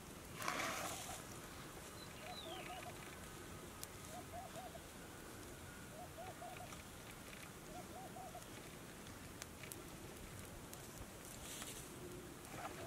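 A dove cooing in the background, a short phrase of three or four notes repeated about every two seconds. There is a brief burst of rustling about half a second in.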